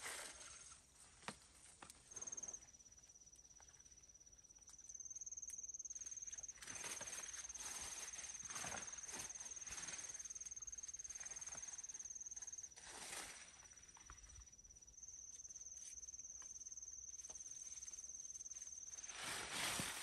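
Rustling of taro leaves and stalks being pushed through and pulled, coming in short bursts, with an insect's high, steady trill running through most of it and shifting slightly in pitch.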